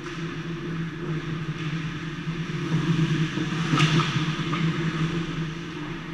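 Ice hockey play close to the net: skates scraping and sticks clattering on the ice, over a steady low hum. A sharp crack comes just before four seconds in, with a fainter one soon after.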